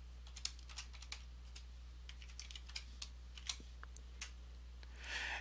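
A computer keyboard typed in faint, irregular keystrokes, about a dozen soft clicks, as a password is entered at a sudo prompt.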